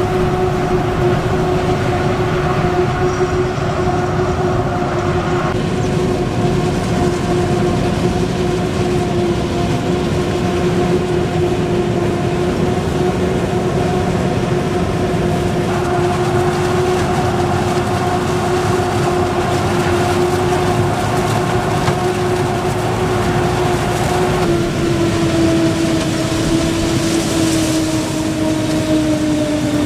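Self-propelled Claas forage harvester chopping maize at work: a steady whine over the machine's running and chopping noise. The whine steps slightly lower near the end.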